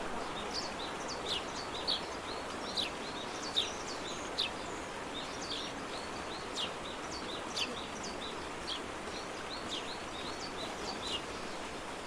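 Small birds chirping repeatedly in quick short notes that slide downward, over a steady outdoor hiss.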